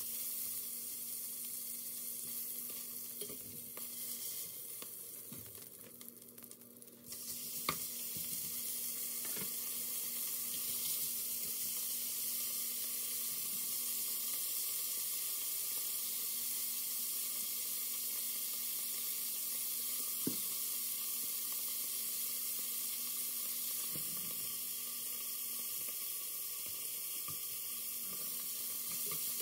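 Beef cubes searing in an enameled cast-iron Dutch oven: a steady sizzle, with occasional light clicks of metal tongs on the pot as the pieces are turned. The sizzle thins about four seconds in and comes back with a sharp click a few seconds later.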